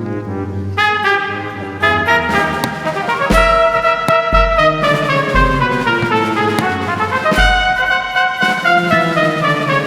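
Orchestral music led by brass, with sustained chords and a slowly falling line. Deep low thuds come about every two seconds.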